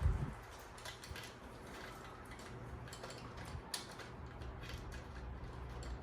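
Small irregular clicks and ticks of parts and hand tools being handled while ignition coils and coil spacers are fitted on the engine, with a knock at the start and one sharper click a little past halfway.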